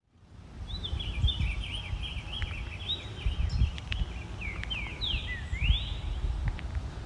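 A songbird singing a rapid run of short chirping notes, ending with a few longer rising notes, over a steady low rumble.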